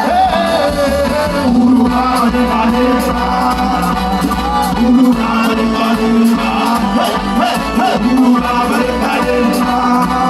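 Music of hand drums, African tam-tam drums, beating a fast rhythm, with singing over them.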